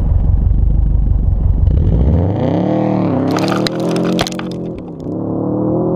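Subaru Impreza's flat-four engine rumbling at the exhaust, then revving hard about two seconds in as the car launches away on gravel. A spray of gravel clatters against the microphone between about three and four and a half seconds.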